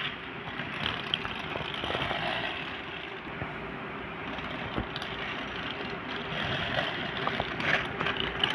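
Small electric motor of a battery-operated toy train whirring steadily, with a few light plastic clicks as the train is handled on its plastic track.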